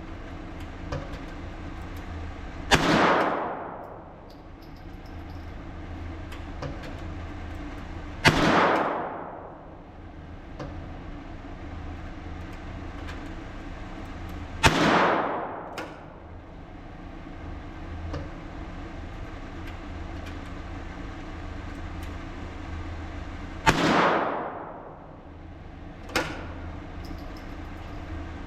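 Four single .22 LR shots of Norma Match ammunition, about six to nine seconds apart, each trailing off over about a second, with a fainter sharp click near the end, over a steady low hum.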